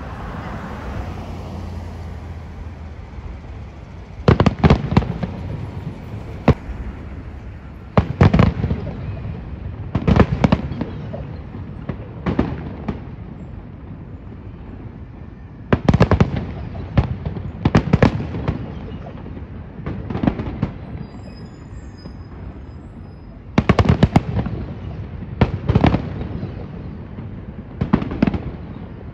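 Aerial fireworks shells bursting: loud sharp bangs in clusters every two to four seconds, some clusters several quick bangs in a row, starting about four seconds in.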